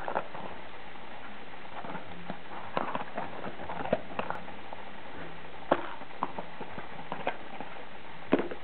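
Something clattering inside: irregular light taps and clicks with a few sharper knocks, over a steady hiss.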